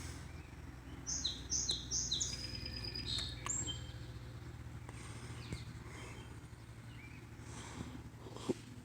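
A songbird singing: a quick run of about four two-part whistled notes, each dropping in pitch, about a second in, then a short trill and a single note, with fainter calls later. Underneath is the steady low rush of flowing stream water.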